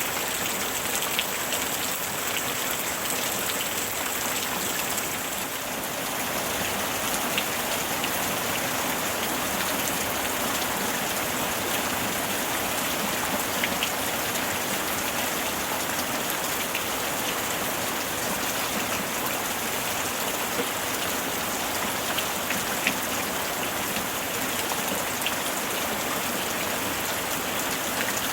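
Steady summer rain falling, an even hiss with scattered individual drops ticking on surfaces.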